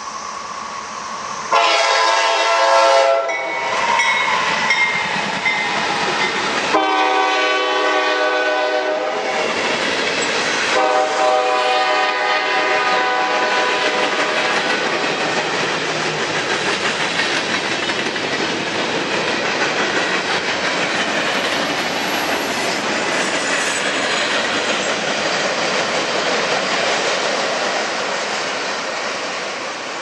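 Norfolk Southern diesel freight locomotive sounding its air horn in three long blasts, then the steady noise of a mixed freight train's cars rolling past on the rails, easing slightly near the end.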